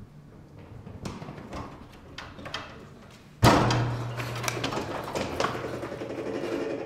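Light knocks and scuffs, then a sudden loud bang about three and a half seconds in, trailed by a low rumble that slowly fades.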